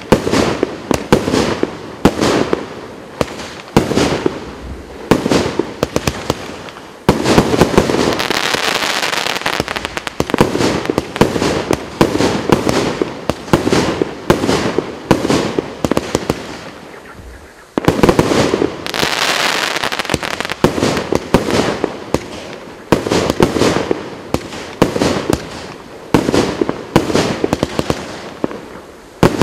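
Maxsem Red Wave GP513 consumer fireworks cake firing shot after shot: sharp bangs in quick succession, about two a second. There are two longer stretches of dense, unbroken sound, about a quarter and two-thirds of the way through.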